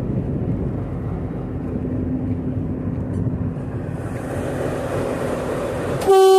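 Indian Railways diesel locomotive engine rumbling steadily. About six seconds in, the locomotive's horn starts: a loud, steady blast, the loudest sound here.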